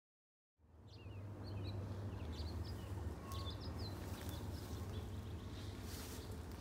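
Small birds chirping in many quick, short calls over a steady low rumble on the microphone. The sound starts abruptly just under a second in, with a few sharp clicks midway.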